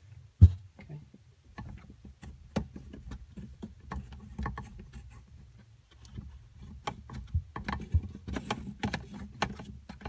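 Close-up handling noise as a braided faucet supply line's coupling nut is threaded by hand onto a plastic pipe fitting: irregular small clicks, taps and rubbing, with one hard knock about half a second in and a low uneven rumble of fumbling underneath.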